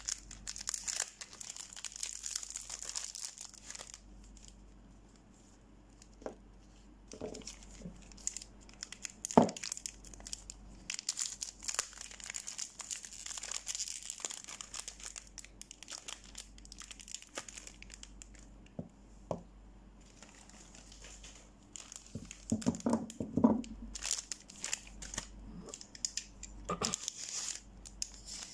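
Thin plastic soap wrapper crinkling and rustling as it is handled and pulled off a bar of soap, with a quieter spell or two. A sharp click about a third of the way in and a cluster of light knocks about four-fifths of the way in.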